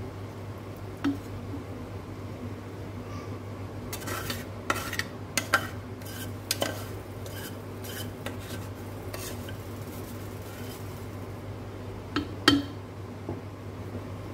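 A spoon knocking and scraping against a cooking pot, in scattered short clinks: one about a second in, a cluster about four to seven seconds in, and two more near the end, over a steady low hum.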